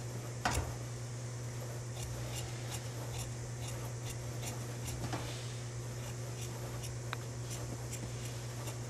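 Large tailor's shears cutting through jacket fabric on a cutting table: a regular run of faint snips as the blades close, over a low steady hum. There is a brief knock about half a second in.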